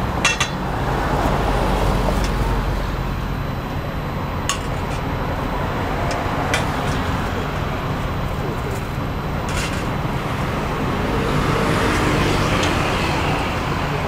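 Steady traffic noise from the road, with a few sharp metallic clinks of a spoon and tongs against a stainless-steel mixing bowl as a salad is tossed.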